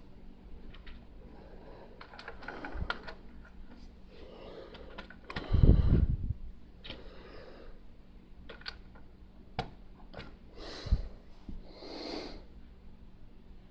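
Small plastic clicks and rustling of Lego pieces being handled and pressed together, with a louder dull bump about halfway through.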